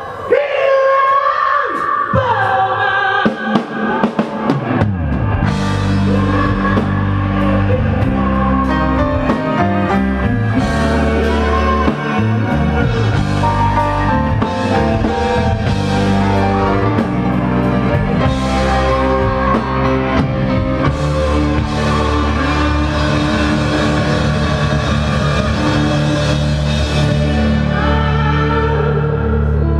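Live rock band playing a song with singing; after a sparse first few seconds, the full band with drums and bass comes in about five seconds in and carries on steadily.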